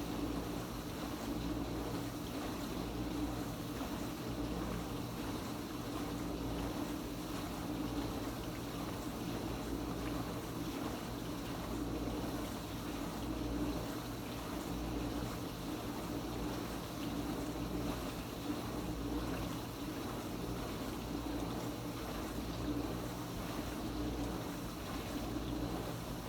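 Kenmore Ultra Wash 3 dishwasher running its Quick Rinse cycle: a steady pump-motor hum with water rushing and splashing inside the tub.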